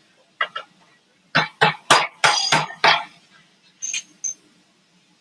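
Robotic welding in a factory workshop: a series of short, sharp bursts of noise at irregular intervals, with a brief high tone twice near the end.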